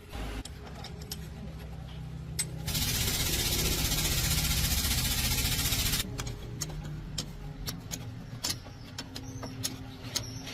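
A low, steady machine hum. About a third of the way in, a loud hiss lasts roughly three seconds and stops abruptly. Scattered clicks and knocks follow.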